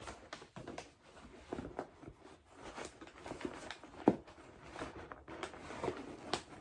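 Handling noise of products and packaging being moved about: irregular light taps, clicks and rustles, with one sharper knock about four seconds in.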